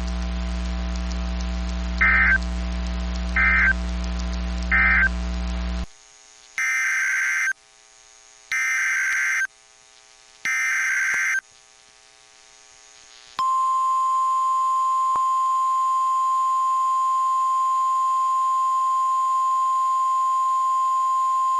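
NOAA Weather Radio emergency alert tones. Over a steady low hum come three short end-of-message data bursts. After a brief quieter gap come three longer SAME header data bursts, and then the steady 1050 Hz warning alarm tone holds for about nine seconds: the alert sequence that comes before a spoken tornado warning.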